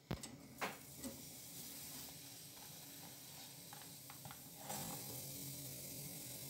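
Faint steady hiss and low hum of a kitchen, with a few light clicks and knocks of handling near the start and about five seconds in, after which the hiss grows slightly louder.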